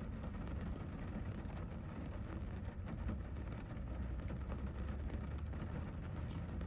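Steady rain, with many small drop ticks over a low, constant rumble.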